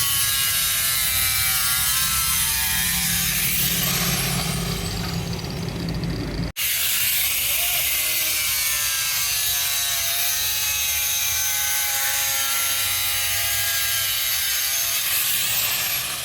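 Power tool running steadily while working a plastic chair, a loud rasping noise with a whining motor tone over it. It cuts out abruptly about six and a half seconds in and starts again at once.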